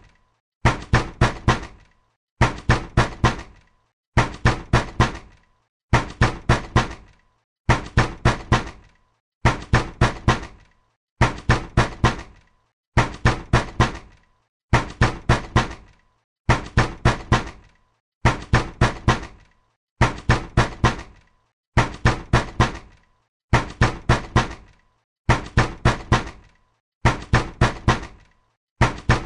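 Angry knocking on a door: hard knocks in quick groups of four, a group about every second and three quarters, repeating evenly.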